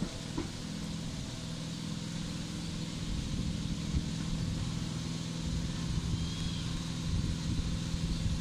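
Engine of a miniature railway locomotive running steadily as it approaches, its hum growing slightly louder.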